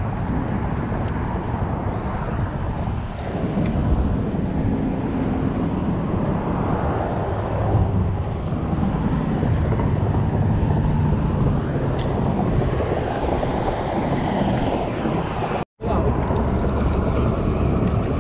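Steady low outdoor rumble by open water, with a few faint clicks. It cuts out for an instant near the end.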